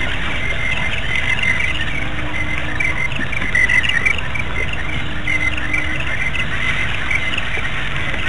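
A busy chorus of many short, high chirping calls from wild animals at a waterhole, mostly birds. Underneath it, a low note about a second long recurs roughly every three seconds.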